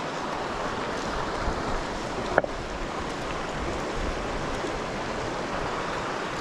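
Shallow mountain creek running over rocks, a steady rush of water, with one short sharp click a little over two seconds in.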